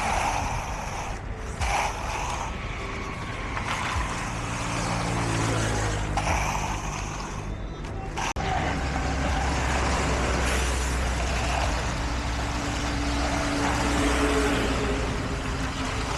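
Heavy diesel construction machinery running, with engine tones that shift in pitch; the sound breaks off abruptly about eight seconds in and continues as a steadier low engine drone.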